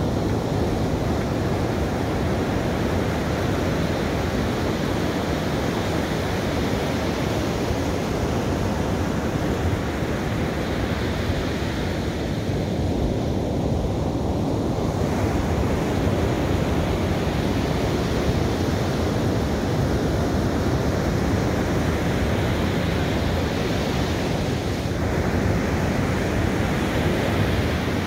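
Ocean surf breaking and washing up a sandy beach in a steady rush, with wind noise on the microphone. It swells brighter as waves break about twelve seconds in and again near the end.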